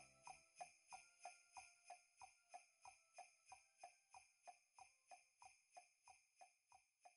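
Faint background music of jingle bells shaken in a steady beat, about three strikes a second, with a low accompaniment dying away at the start.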